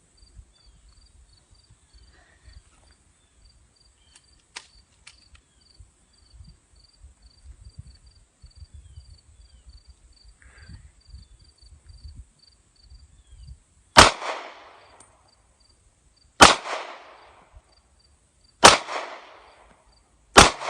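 Four pistol shots from a Glock 27 Gen 4 in .40 S&W, about two seconds apart in the second half, each followed by a trailing echo. Before them, insects chirp steadily.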